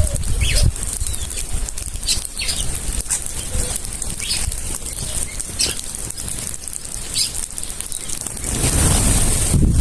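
A flock of birds feeding on corn and beans: wings flapping, with scattered short chirps and clicks. A louder rush of noise comes near the end.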